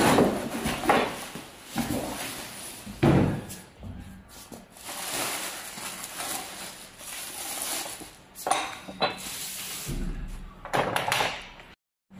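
Unboxing handling noise: a cardboard box scraping off a folding aluminium-framed utility cart, then plastic wrap rustling and crinkling as it is pulled off. Several sharp knocks come from the cart frame being handled and set upright.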